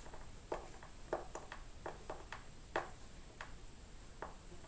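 A screw being turned by hand with a Phillips screwdriver to fasten a subwoofer's crossover circuit board, giving about a dozen small, irregularly spaced clicks and creaks. It is tightened gently because the board can crack if the screw is driven too tight.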